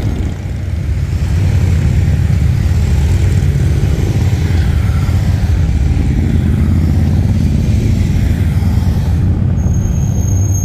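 Steady low rumble of motorcycle engines and road traffic as motorcycles ride past on the street. A thin high-pitched whine joins in about a second before the end.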